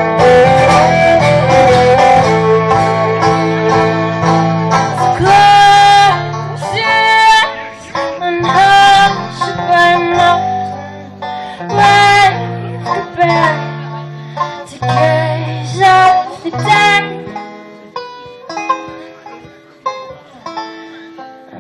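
Guitar music, an instrumental passage of a song with a steady bass line under plucked melody notes, growing sparser and quieter over the last few seconds.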